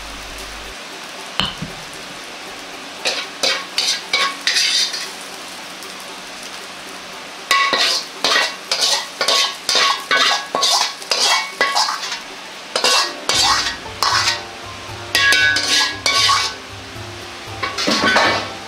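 Metal ladle scraping and tapping in a wok as fried rice is scooped out, in quick runs of sharp strokes with a faint metallic ring, over a low sizzling hiss.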